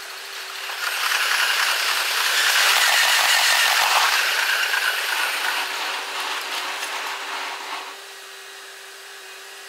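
Passenger trains passing on the tracks, played at six times normal speed, so the wheel and rail noise becomes a fast, dense rattling clatter. It swells about a second in and dies away near the end.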